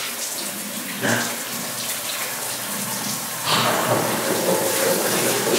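Water pouring from a ceiling-mounted rain shower head onto a person's head and shoulders, a steady spray that grows louder about three and a half seconds in.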